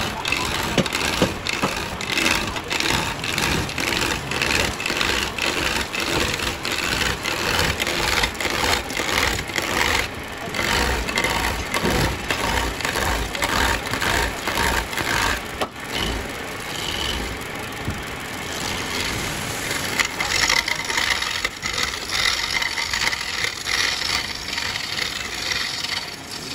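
Lathe chisel cutting a long spinning wooden blank: a continuous rough scraping and rattling of the tool biting into the wood, made of rapid knocks, easing briefly about two-thirds through.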